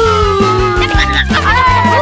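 Background music with a steady bass beat under sliding, gliding melody lines.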